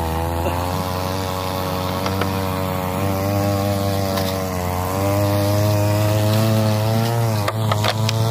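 Small two-stroke brush-cutter engine rigged as a longtail boat motor, running steadily while driving the boat. It gets a little louder about five seconds in, and a few sharp knocks sound near the end.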